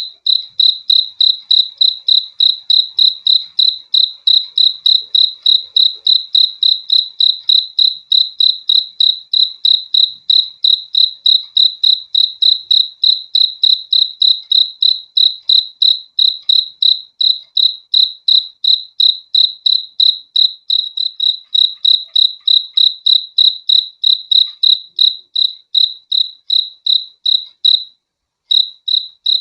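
A cricket chirping in a steady, even rhythm of about three high, single-pitched chirps a second. It pauses briefly a little over a second before the end.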